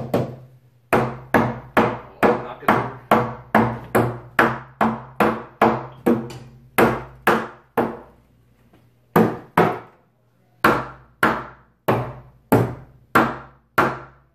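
Hammer blows on a wooden 2x4 stud, knocking it tightly into place in the wall framing. A steady run of sharp knocks, about two a second, each with a short woody ring, broken by two brief pauses past the middle.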